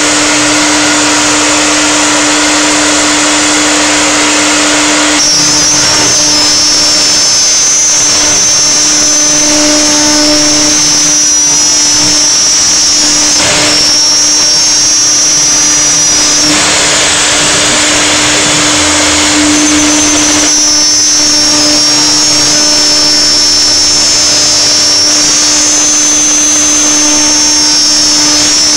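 CNC router spindle running and milling polyamide plastic: a loud, steady hum with a high whine over a cutting hiss. The hiss changes in character about five seconds in, and again around sixteen and twenty seconds.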